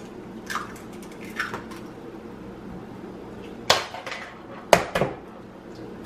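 Eggs being cracked against the rim of a mixing bowl: a few soft taps and crunches in the first two seconds, then sharp knocks of shell on the rim once a little past the middle and twice near the end, with the shells pulled apart over the bowl.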